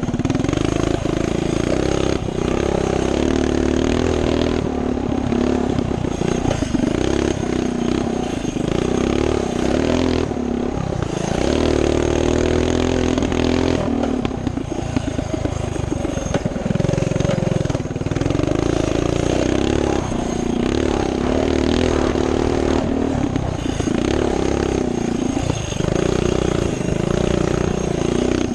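Coleman CT200U minibike's single-cylinder four-stroke engine running hard under way, its pitch rising and falling as the throttle is opened and eased off, with brief dips a few times. Wind noise runs underneath.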